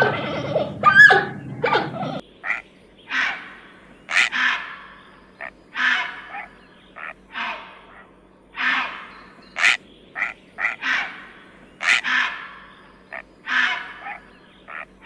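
An animal's short, harsh calls, repeated about once a second, after a different animal sound that stops about two seconds in.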